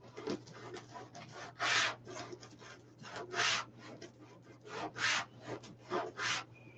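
Wreath-making materials such as deco mesh and ribbon being handled and pulled on a wire wreath form: irregular rustling and rubbing, with several louder swishes.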